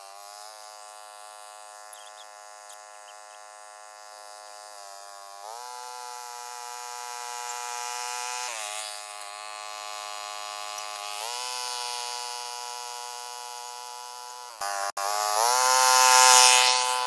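Two-wheel power tiller engine running steadily under load as it pulls furrows through dry soil. Its pitch rises in short glides about four times. Near the end it cuts out for an instant and comes back louder.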